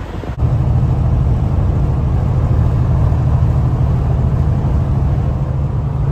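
Semi truck's diesel engine and road noise droning steadily inside the cab at highway speed, starting abruptly about half a second in.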